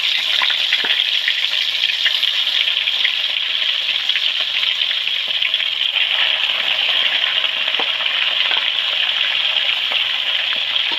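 Bhetki (Asian sea bass) fish bones frying in hot oil in a pan: a steady sizzle with scattered small crackles.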